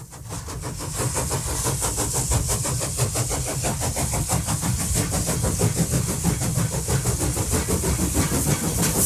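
A train running, with a fast, even rhythm of beats over a low rumble and a steady high hiss, fading in over the first second.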